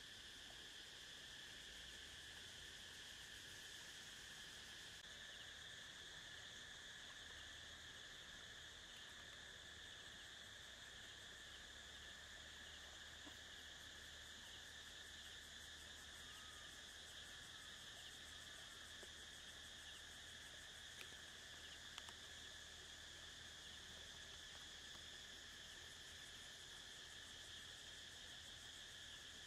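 Faint, steady chorus of insects chirring in a continuous high drone. Two small clicks a little past two-thirds of the way in.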